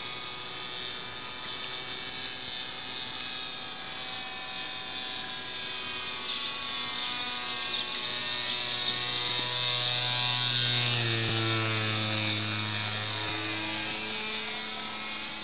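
Radio-controlled model airplane's motor buzzing overhead. It grows louder and then drops in pitch as the plane passes by, about ten to eleven seconds in.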